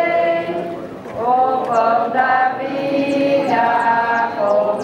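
Congregation singing a communion hymn together in long held notes, with a short pause for breath about a second in.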